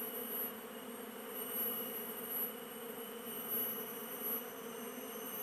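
Asian honeybees (Apis cerana) buzzing as a steady hum around their opened nest in a hollow tree trunk, the colony stirred up with its comb cut out.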